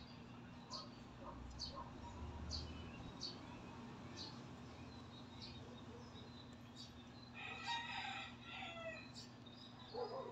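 A rooster crowing faintly, one long crow about seven seconds in, over a steady low hum and scattered short high chirps.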